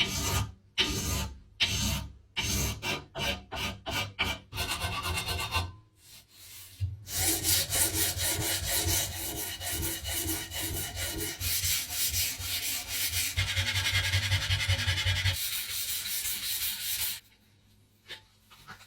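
Hand rubbing strokes on the cleaver, like sanding. First come separate back-and-forth strokes about two a second. After a short pause there is about ten seconds of faster, continuous scrubbing that stops abruptly.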